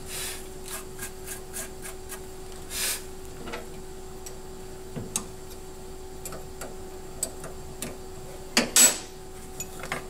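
Light clicks, taps and scrapes as plastic chips are cleared by hand from a milling machine's steel vise, over a steady faint hum. A louder scrape and knock a little before the end as the vise is opened and the engraved acrylic piece is taken out.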